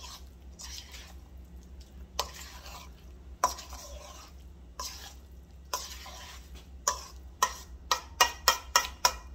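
A utensil stirring and scraping mashed avocado guacamole in a stainless steel mixing bowl: wet scraping strokes with sharp metallic clicks against the bowl, about a second apart at first, then quickening to about three a second near the end.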